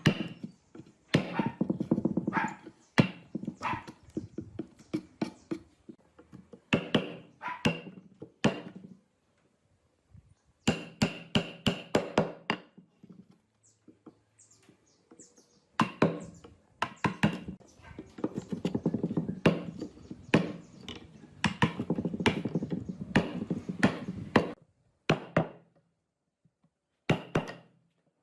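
Runs of sharp knocks and thuds, many in quick succession, some with a short ringing tone, broken by brief pauses.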